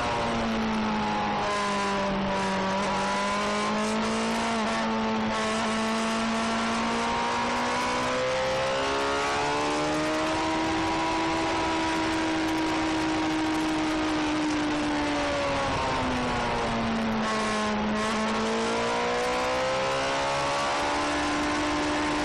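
Suzuki GSX-R sport bike engine running under way, its note easing down and rising again twice as the rider rolls off and back onto the throttle through bends, over steady wind rush on a tank-mounted microphone.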